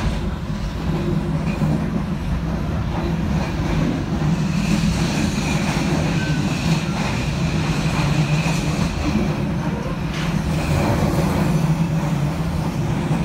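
Steady running rumble of a moving passenger train, heard from aboard the coach: wheels rolling on the rails. A faint high whine joins the rumble about four seconds in and fades out near the ten-second mark.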